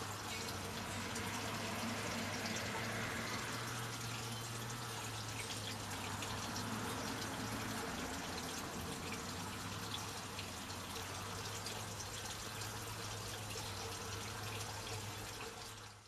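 Steady rush of running water, even and unbroken, with a low steady hum beneath it, fading out at the very end.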